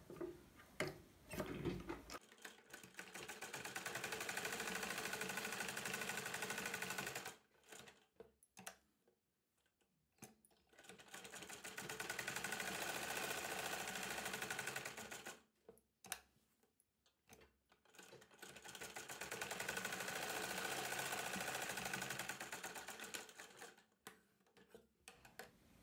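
Sewing machine running a line of stitches in three runs of about four to five seconds each. Each run picks up speed at the start. There are short pauses between runs, with a few small clicks in them.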